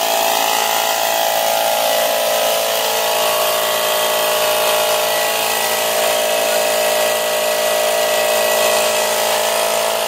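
Air compressor running steadily as it fills its tank, a loud, even motor drone with a steady whine.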